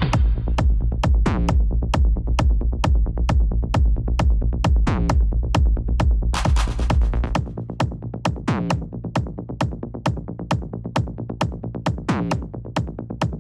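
Techno from a DJ live set: a fast, even drum-machine beat with falling synth sweeps every few seconds. The heavy bass cuts out about seven seconds in, just after a bright noise burst, leaving the thinner beat running.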